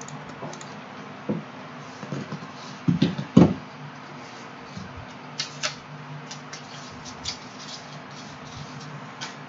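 Computer mouse clicks and keyboard taps, a run of sharp clicks in the second half, over a steady low electrical hum. A few dull low thumps come about three seconds in and are the loudest sounds.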